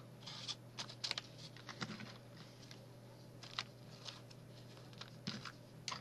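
Faint, scattered clicks and light rustles of paper and card being handled, such as pages and tags of a handmade paper envelope book. They cluster in the first two seconds, with a few more later.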